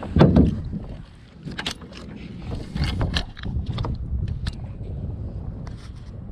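Handling noise from a spinning rod and reel: a low thump just after the start, then scattered short clicks and knocks as the reel is worked by hand, over a low wind rumble on the microphone.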